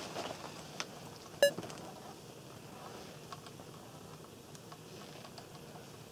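A faint click, then a short electronic beep about a second and a half in, marking the start of a stopwatch timing run; after that only quiet room tone with a few faint clicks.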